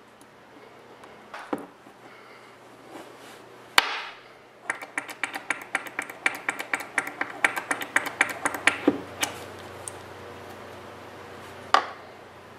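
Small plastic-and-metal parts of a Kossel Mini effector assembly clicking and clattering as they are handled and fitted: a few sharp single clicks, then a quick run of closely spaced clicks for about four seconds in the middle.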